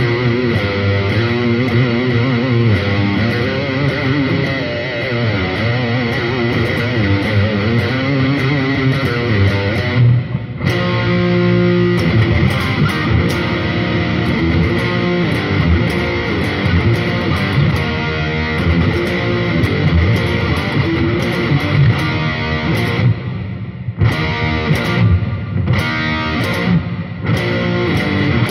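Electric guitar played with overdriven distortion through a drive and delay/reverb pedal. The playing is continuous, with brief stops about ten seconds in and a few times near the end.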